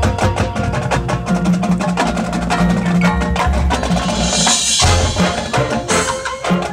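High school marching band playing its field show: a percussion-heavy passage of rapid drum and mallet strikes over sustained low notes, with a brief bright swell about four and a half seconds in.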